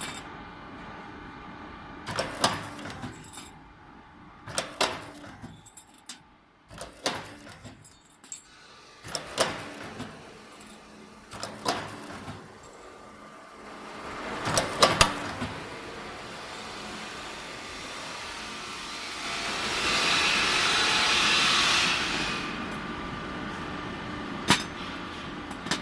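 Hydraulic CNC pipe punching machine at work: sharp metallic punch strikes about every two to two and a half seconds, then a louder steady rushing noise for a few seconds, and one more strike near the end.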